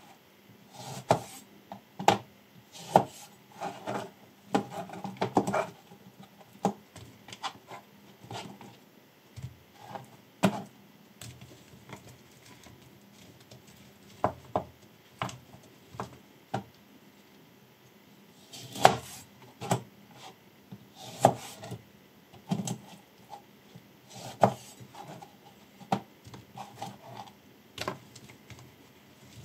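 Chef knife cutting lemons on a plastic cutting board: irregular sharp knocks of the blade striking the board, some in quick clusters, with quieter handling between them.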